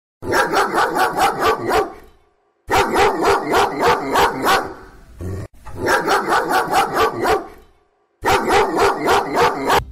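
A dog barking in quick runs of about four to five barks a second, four bursts of roughly two seconds each with short silences between.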